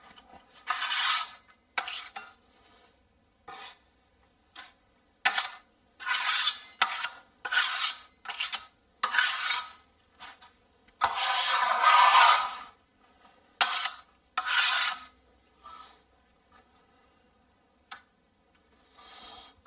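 Hand sanding of dried GIB finishing compound over a drywall patch: a dozen or so irregular rasping strokes, some brief and some over a second long, with short pauses between.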